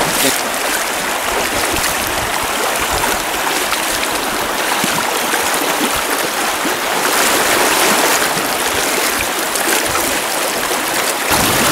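River water rushing steadily over a shallow riffle, a loud, even rush of moving water.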